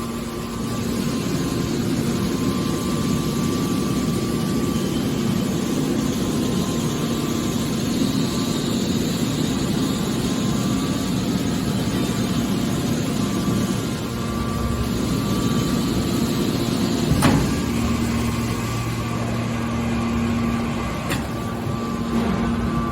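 Scrap metal baler's hydraulic machinery running with a steady hum and whine. A sharp metallic knock comes about 17 seconds in, and a lighter one a few seconds later.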